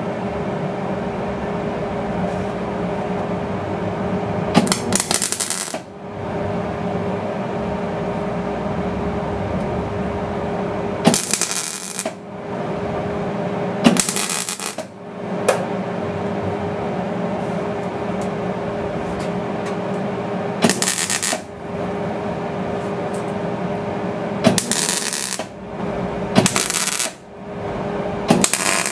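MIG welder laying short stitch welds on sheet-steel fender metal: about seven separate crackling bursts, each lasting under a second, with pauses between them. Under them runs a steady hum.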